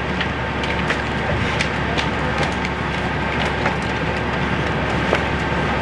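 A vehicle engine idling steadily, a low even drone, with scattered light clicks and knocks over it.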